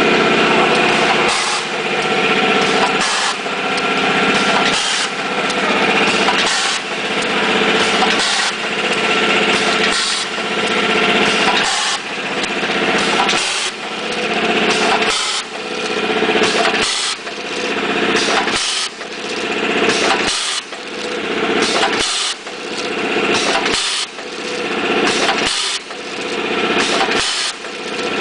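Tea bag packing machine running, a steady mechanical whirr that swells and dips in a regular cycle about every second and three quarters as it works through each bag.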